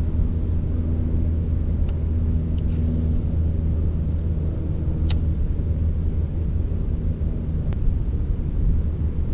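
A steady, low engine drone with a hum, joined by a few faint sharp clicks.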